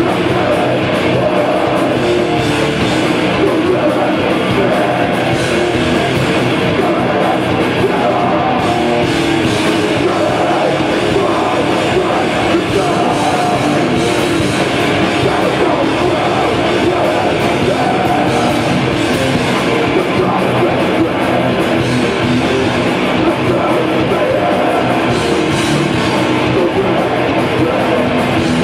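A live heavy metal band plays loud and without a break: distorted electric guitar and bass guitar in a dense, continuous wall of sound.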